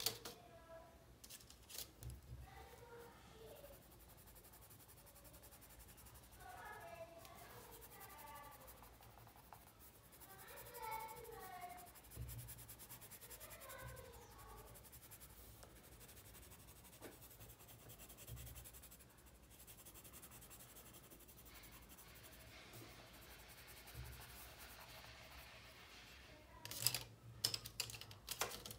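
Faint scratching of a coloured pencil shading on paper, with a few sharp taps near the end.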